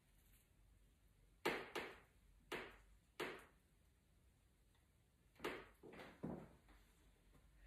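Soft handling noises as flower stems are placed in a bowl arrangement: about eight short knocks and clicks, four spread out in the first half, then three or four in quick succession later on.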